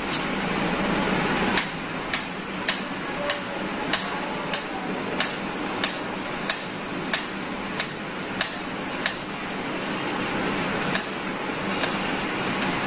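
A knife slicing a banana on a plate, each cut ending in a sharp tap of the blade on the plate, about one every half second from about a second and a half in until about nine seconds, then a few more near the end, over a steady background hiss.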